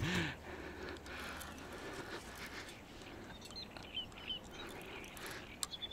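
Quiet outdoor background with a few faint, short bird chirps in the middle and a couple of small clicks near the end.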